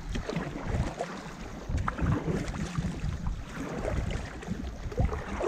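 Paddle strokes splashing in the water beside an inflatable tandem stand-up paddleboard, at irregular moments, with wind noise on the microphone throughout.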